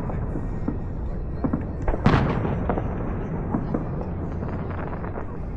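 Fireworks going off: one loud bang about two seconds in, with scattered smaller pops and crackles over a steady low rumble.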